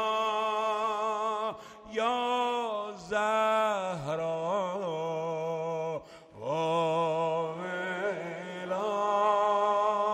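A male maddah sings a Persian Shia mourning lament (noha) solo in long, drawn-out, wavering phrases, crying out "Wa waila" and "Ya Zahra". The phrases are broken by short pauses for breath.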